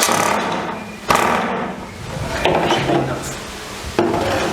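Knocks and clatter of wooden pieces being handled and set against each other: three sharp knocks, the first two about a second apart and the last near the end.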